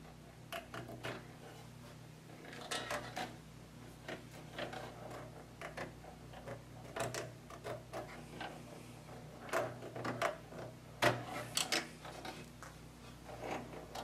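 Hands plugging SATA data and power cables into an SSD inside an open desktop computer case: irregular small clicks, taps and rustles of plastic connectors and cables against the metal chassis, busiest about eleven seconds in.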